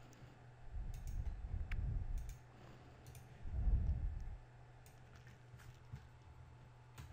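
Scattered computer mouse clicks over a faint steady low hum, with two stretches of low rumbling, about a second in and again near the middle.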